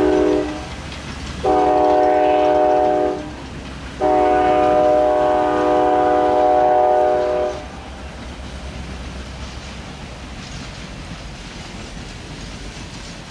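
Diesel locomotive air horn: the tail of one blast, then a shorter blast and a long one of about three and a half seconds, the closing pattern of a grade-crossing signal. After the horn stops, just past the middle, passenger cars rumble steadily past on the rails.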